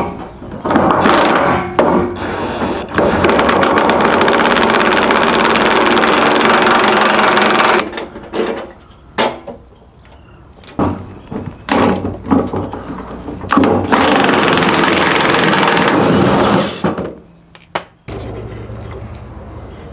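Cordless DeWalt impact wrench hammering loose the fuel tank strap bolts: one long run of several seconds, a string of short bursts, then another long run.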